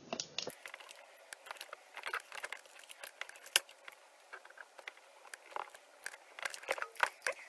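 Faint, irregular clicks and crackles of hands handling a laptop's LCD panel and its tape and cable connections, with one sharper click about three and a half seconds in.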